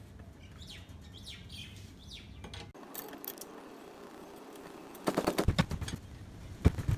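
Steel pry bar rattling and knocking against a mower engine's clutch, in a quick run of sharp metallic clicks about five seconds in and a few more knocks near the end, as the bar is levered to force a clutch stuck on the engine shaft.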